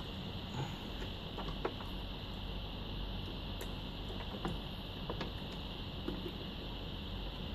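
Scattered small clicks and knocks of plastic parts being pushed and snapped into place on a sushi machine, over a steady background hum.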